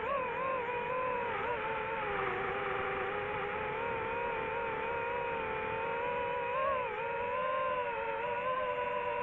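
FPV quadcopter's motors and propellers whining steadily, several close pitches beating against each other and drifting up and down together with throttle, with a short blip up about two-thirds of the way through.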